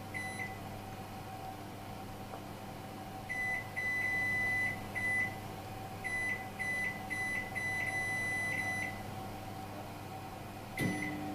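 Touch-control panel of a Capella BOC 625 built-in combi oven beeping as its buttons are pressed to set defrost mode and food weight: single high beeps in quick runs, two of them held longer. A steady low hum runs underneath.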